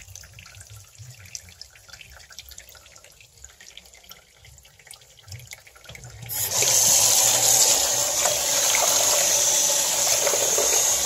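Kitchen faucet turned on about six seconds in, water running hard into the sink over a raw turkey in a foil roasting pan. Before that there are only faint small clicks.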